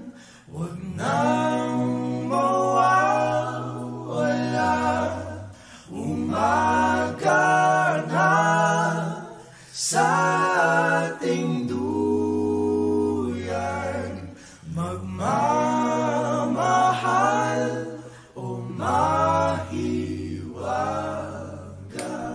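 Background music: a cappella singing, several voices with a held low line beneath, in phrases of a few seconds with short breaks between.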